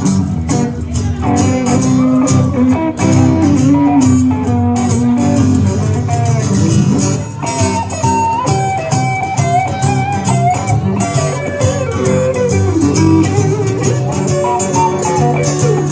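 A small band playing live, with guitar to the fore.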